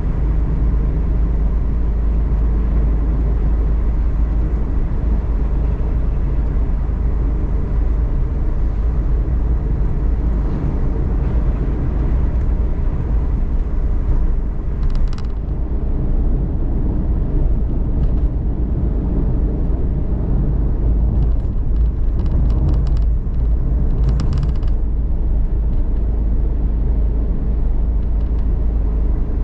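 Cabin noise of a Suzuki Every DA17V kei van on the move: a steady low engine and road rumble. A few brief crackly sounds come through around the middle and again about three-quarters of the way in.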